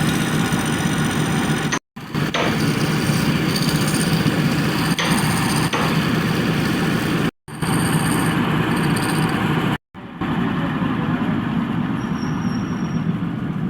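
A woodworking machine running steadily under power, heard in several short spliced clips that cut off and restart abruptly.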